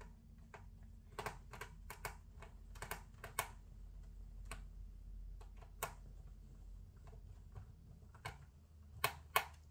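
Small screwdriver working laptop case screws: irregular light clicks and taps of metal bit and tool on the screws and case, with two louder clicks near the end.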